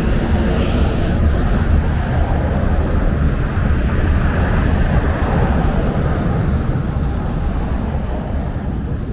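Road traffic: cars and a truck passing close by at an intersection, a steady low rumble of engines and tyres that grows fainter near the end.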